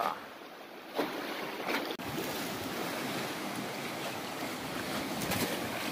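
Wind buffeting the microphone over the steady wash of sea water against a concrete sea wall, with a few faint short sounds about one, two and five seconds in.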